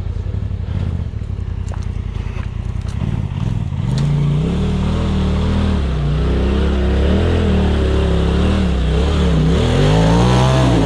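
Polaris RZR side-by-side's engine working up a steep rocky climb: a steady low rumble at first, then from about four seconds in the revs rise and fall again and again as the throttle is worked, loudest near the end.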